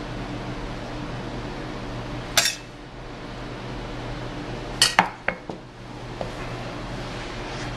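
A metal serving spoon and a china plate clinking as sauce is spooned onto the plate: one sharp clink about two and a half seconds in, then a quick cluster of clinks about five seconds in. A steady low hum runs underneath.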